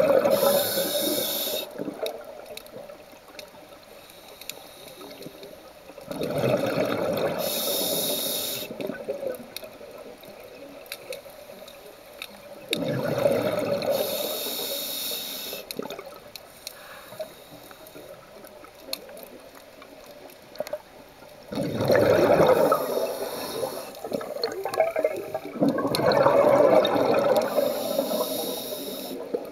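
Scuba diver breathing through a regulator underwater: five exhalations, each a burst of bubbling lasting about two seconds and coming every six to seven seconds, with quieter stretches between.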